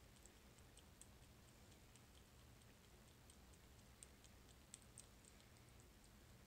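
Faint, irregular little clicks of a baby gray squirrel nibbling and gnawing food held in its front paws, over near silence.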